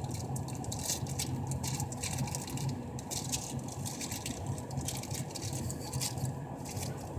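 Crinkling and rustling of small plastic packaging bags being opened by hand, dense irregular crackles over a steady low hum.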